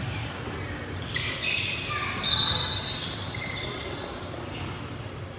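Basketball in play: the ball bouncing and players moving on the court amid voices, with a short, loud, high-pitched squeal a little over two seconds in.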